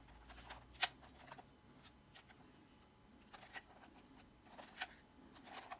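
Quiet handling noise while the toy car is held up and shown: scattered light clicks and taps of plastic, the sharpest just under a second in, over a low room hum.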